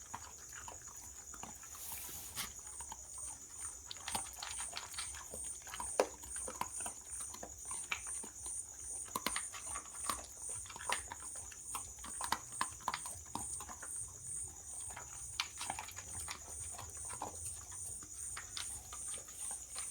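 Dog crunching dry kibble: irregular crunches and clicks from chewing. A steady, evenly pulsing high chirp of insects runs behind it.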